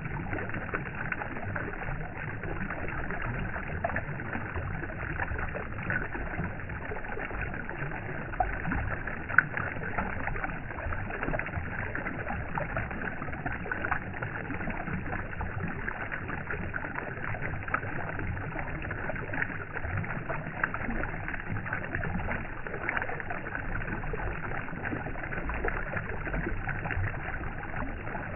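Steady rushing of moving water, with a few small clicks and splashes scattered through it.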